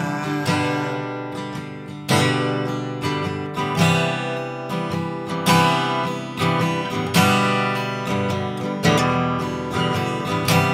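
Acoustic guitar strumming chords in an instrumental break of a song, with a strong strum about every second and a half and lighter strums between.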